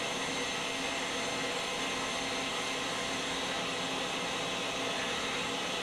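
Citizen L20X Swiss-type CNC lathe running during a helical cut on a brass workpiece: a steady whirring hiss with faint steady tones.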